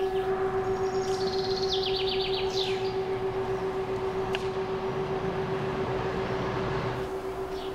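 Brass singing bowl humming on one steady note, the sound wavering about four times a second. Birds chirp and trill over it for a second or two, starting about a second and a half in.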